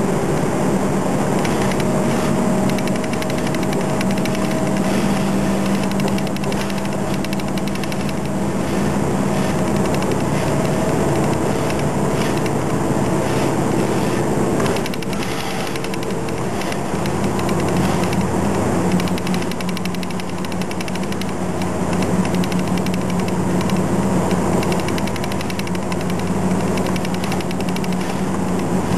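A Toei city bus running along the road, its engine and road noise heard from inside the cabin. The engine note shifts partway through as the bus changes speed.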